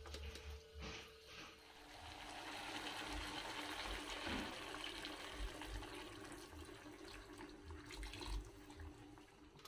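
A silicone spatula stirs and taps in a nonstick wok. From about two seconds in, water pours in a steady stream into the wok of chicken in spice paste, splashing as the pan fills, and it stops near the end.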